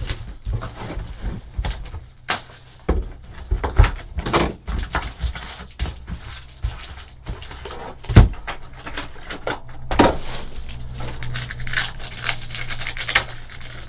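Foil-wrapped trading card packs and their cardboard box being handled, then a foil pack torn open: a run of irregular rustles, crinkles and sharp crackles, loudest about eight seconds in, over a low steady hum.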